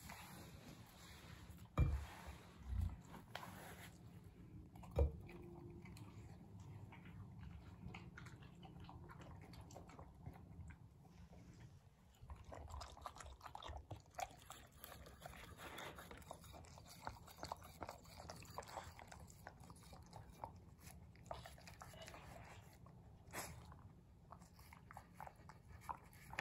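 A beagle eating from a bowl: steady chewing and licking with many small clicks, and three louder knocks in the first five seconds.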